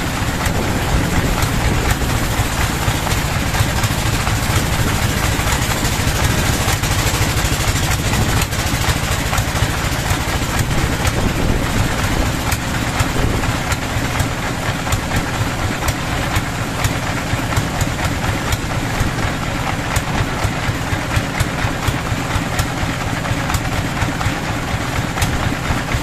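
A sawmill's band saw and the engine that drives it running steadily while a long hardwood plank is ripped: a constant drone with a fast, even beat under a dense, hissing sawing noise.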